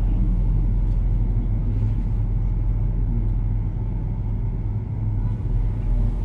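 Steady low hum and rumble with no other clear event.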